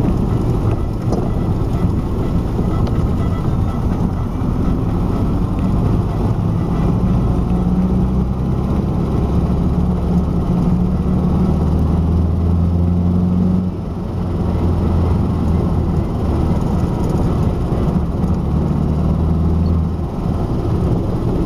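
GAZ M20 Pobeda being driven, with a steady rumble and a low drone that strengthens in the middle, drops away briefly about two-thirds through, then comes back. This is the cyclic, speed-dependent rear-axle noise that the owner likens to a steam locomotive.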